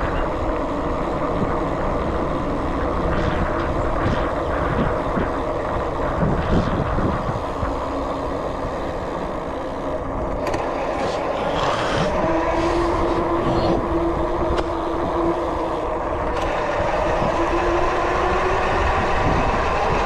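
Steady vehicle and road noise, with a humming tone that comes in about twelve seconds in and lasts a few seconds.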